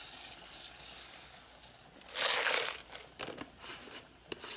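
Dry rice-and-bean mix pouring out of a plastic jar into a saucepan of hot liquid: a brief rushing rattle about two seconds in, followed by a few sharp clicks from the plastic jar and its lid.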